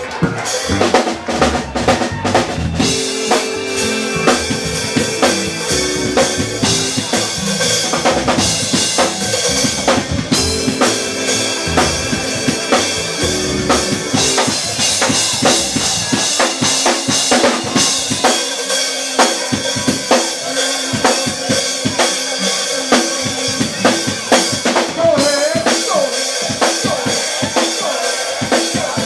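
Live soul band playing, with the drum kit loudest: a steady beat of kick drum, snare and rimshots over held pitched notes.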